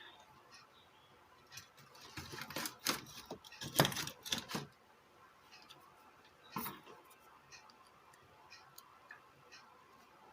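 Handling noise on a repair bench: a run of sharp clicks and knocks about two to four and a half seconds in, one more knock a couple of seconds later, then a few faint ticks.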